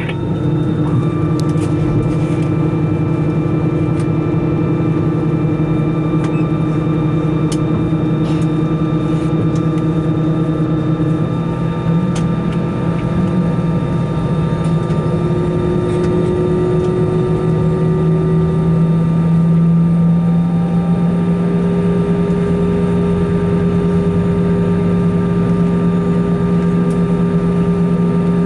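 Airbus A320 cabin noise heard from inside: a steady loud drone with several whining tones. Around the middle, some of the tones shift up in pitch and the low hum grows a little stronger, as the aircraft's machinery changes its running.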